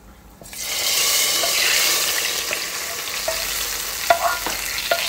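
Hot tadka oil with whole red chillies and cumin seeds poured into kadhi: a loud sizzle starts suddenly about half a second in and keeps going, while a ladle scraping the spices out of the frying pan gives a few short clinks.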